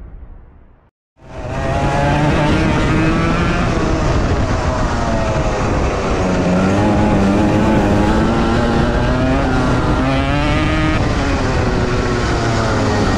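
The tail of a GoPro intro sound fades out, then the sound drops away briefly. About a second in, a Rotax Max 125 kart's single-cylinder two-stroke engine is heard on board, its pitch rising and falling as the kart speeds up and slows through the corners.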